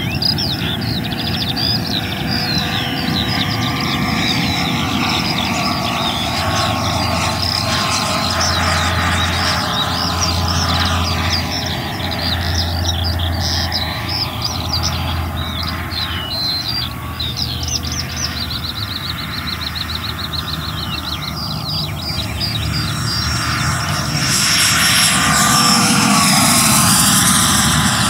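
Electric ducted-fan RC jet in flight: a steady fan whine whose pitch slides slowly as the jet moves around the sky, swelling to its loudest with a broad rush during a close pass about three-quarters of the way through. Birds chirp over it.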